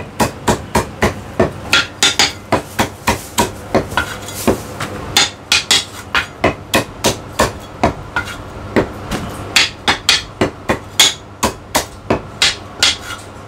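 Heavy Chinese cleaver chopping roast meat on a thick round wooden chopping block: a steady run of sharp strokes, about three a second, with one short pause near the middle.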